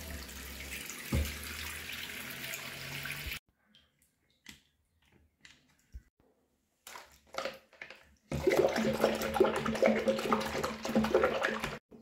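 Bathroom sink tap running into the basin, cutting off suddenly a few seconds in. After a few small clicks and knocks, water runs and splashes louder for about three seconds as a paintbrush is washed under it.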